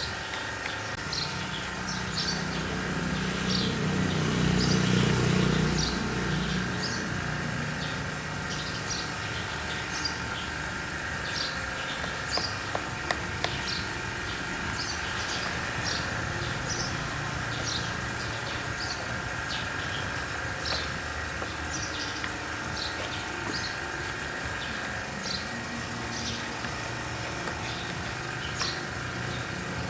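A steady mechanical hum with a high steady whine, swelling louder about four to six seconds in, while birds chirp with short high notes every second or so.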